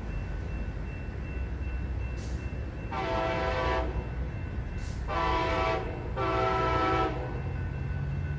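An approaching train's horn sounds three blasts of about a second each, the first about three seconds in and the last two close together, over the low rumble of the oncoming train.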